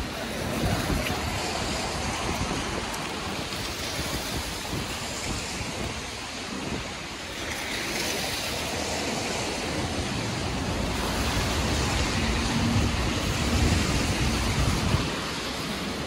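Wind buffeting the microphone: a gusting low rumble under an even hiss, swelling louder for a few seconds past the middle.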